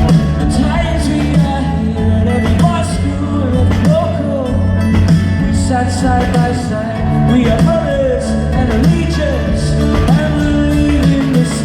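Live pop-rock band performing in a large arena: a male lead vocal sings over drums, bass and guitar, heard as a loud concert recording.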